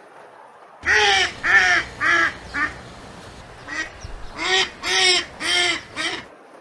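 Canada geese honking: a run of four short honks, a brief pause, then five more. Each honk rises and falls in pitch.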